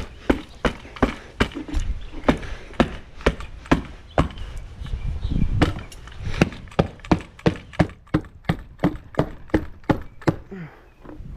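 Rhythmic thuds of a hand tamper pounding concrete stamp mats into the wet slab, about three blows a second, stopping near the end.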